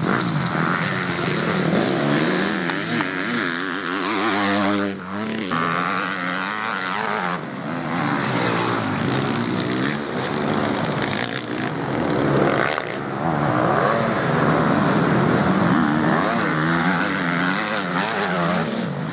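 Motocross bike engines revving on a dirt track, the pitch rising and falling with the throttle, with more than one engine heard at once.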